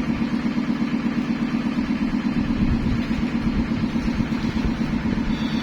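Engine-driven processing machinery for corn flakes running steadily, with an even pulsing beat of about five or six a second.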